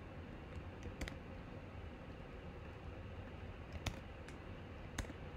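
A few scattered clicks of computer keys and a mouse, about one second in, then around four and five seconds in, over a low steady hum.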